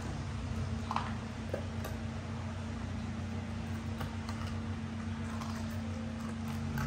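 A dog chewing pieces of ice: a few faint, scattered crunches and clicks over a steady low hum.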